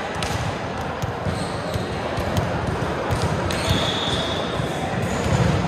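Play in an indoor sports hall: a run of sharp knocks and thuds from the game over a busy background of players' voices. A brief high squeal comes a little past the middle.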